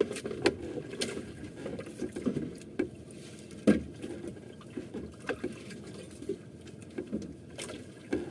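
Water sloshing against a wooden outrigger boat's hull, with scattered knocks and clicks as a fisherman hauls in a handline by hand. One knock a little past the middle is louder than the rest.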